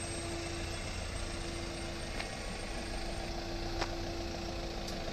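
Engine of a Fiat Ducato pickup running at low speed while the van slowly manoeuvres, a steady hum over a low rumble.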